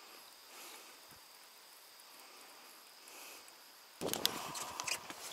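Faint steady high hiss with a thin steady whine. About four seconds in it gives way to loud clicking and rustling as a plastic tackle box and a packaged lure are handled.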